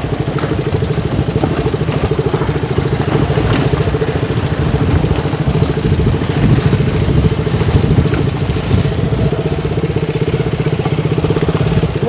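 Motor scooter engine running steadily at low speed with an even, fast pulse, heard from aboard a scooter riding a rough, narrow dirt track.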